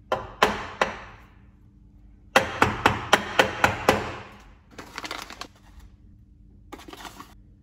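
Sharp knocks of a filled moka pot being tapped on the kitchen counter to settle the ground coffee: three at first, then a quick run of about eight, roughly five a second. Softer rustling and scraping follow near the end.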